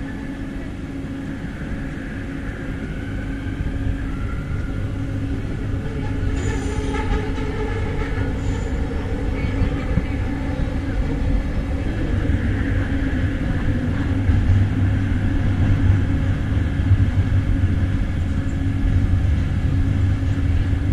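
Driverless metro train heard from inside the carriage while it moves: a steady low rumble of wheels on track with an electric motor whine that drifts in pitch, growing a little louder in the second half.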